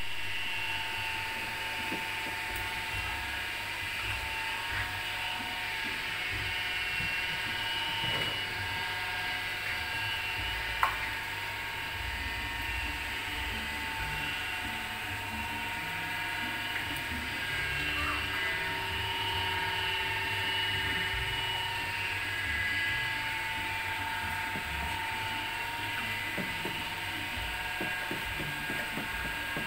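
Steady mechanical whine of a small motor, several held tones over a low rumble, with one sharp click about eleven seconds in.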